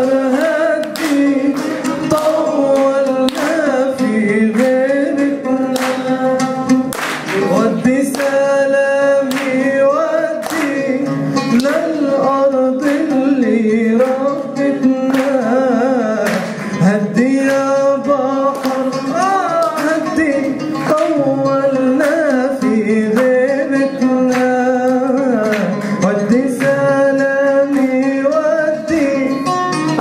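A man singing an Arabic song into a microphone in long, ornamented lines that glide between notes, accompanied by a plucked oud.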